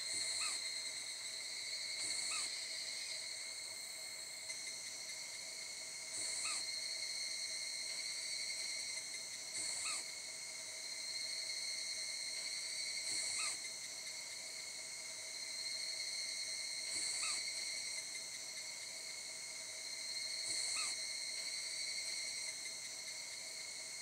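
Fairy pitta alarm call: a short falling whistle repeated seven times, every two to four seconds, over a steady high insect drone. It is an adult's warning call, which the recordist takes as perhaps urging its newly fledged young.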